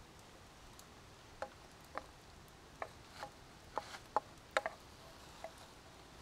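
Wooden spatula knocking against a skillet while stirring shrimp: about ten light knocks, each with a short ring, at an uneven pace and bunched around the middle.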